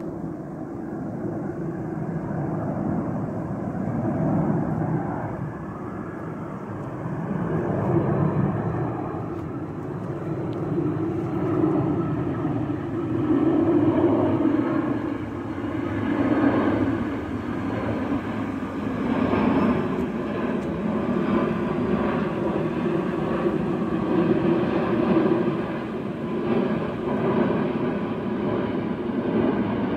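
Twin-engine jet airliner passing low overhead, its engines a continuous rumble that grows louder over the first several seconds and then stays loud, swelling and easing slowly.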